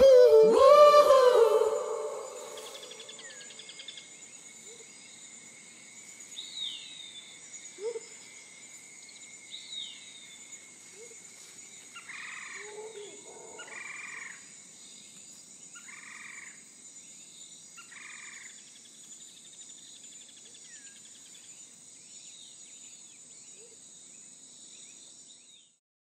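A sung note from background music ends in the first two seconds. After it comes a faint outdoor animal ambience: a steady high insect whine, a few scattered bird chirps, and four short animal calls about two seconds apart.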